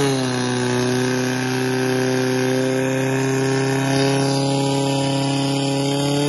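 Portable fire pump's engine running at a steady, constant speed, its pitch settling slightly lower in the first half-second and then holding.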